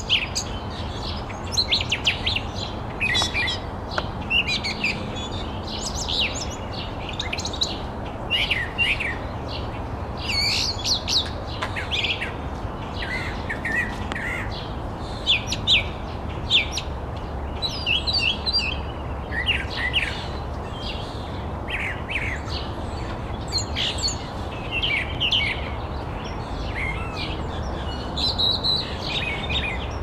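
Brown thrasher singing a long run of short, varied phrases of quick high notes, each phrase different from the last, with only brief pauses between them. A steady low rumble sits underneath.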